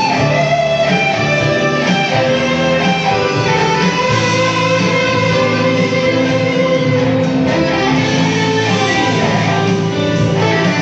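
Electric guitar played live, a melodic instrumental line with long held notes over a steady low bass line.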